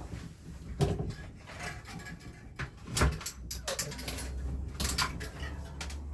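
Bike headset parts being handled while the stem spacers come off the steerer tube: a few scattered knocks and clicks of metal parts, the loudest about three seconds in.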